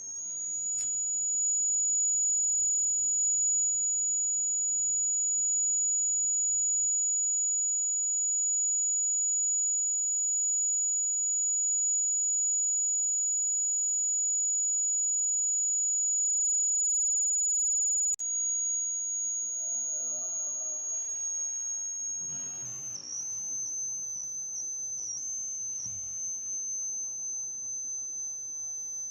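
Buzzer of a homemade thermistor-and-transistor fire-alarm circuit sounding one continuous high-pitched tone that starts suddenly. About two-thirds of the way through, the pitch dips slightly and wavers.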